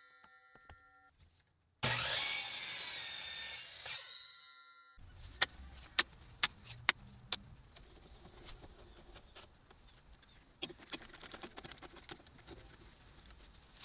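A miter saw cuts through a wooden block for about two seconds, its blade ringing with a fading whine as it spins down. Then come a run of sharp knocks and clicks as the block and bar clamps are set on a metal drill press table.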